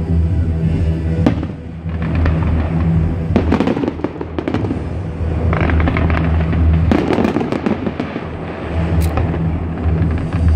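Fireworks going off in clusters of quick crackling bursts, over music playing steadily underneath.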